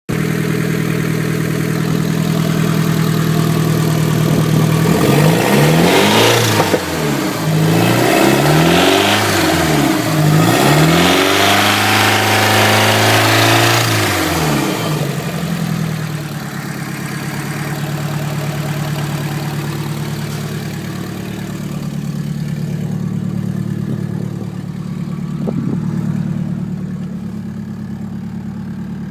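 Nissan SR20 2.0-litre inline-four engine in a 240SX idling, then revved in several quick blips and one held rev, falling back to a steady idle. This engine makes an odd noise that its owner calls funny.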